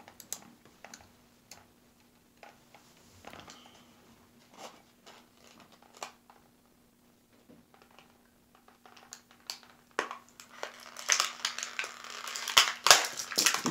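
Clear plastic blister packaging being cut and pried open with a small knife. There are scattered clicks and crinkles at first, then from about ten seconds in a louder, continuous crackling and crunching of the stiff plastic.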